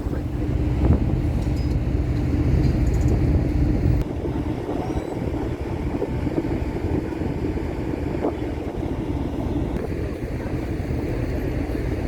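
Steady low rumble of a passenger ferry under way, with some wind noise. A steady hum stops about four seconds in and the sound drops slightly.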